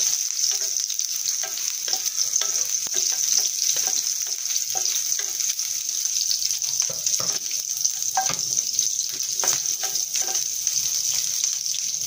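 Garlic and red onion sizzling in hot oil in a frying pan, sautéing until the onion turns translucent, with a spatula scraping and tapping against the pan in irregular clicks as they are stirred.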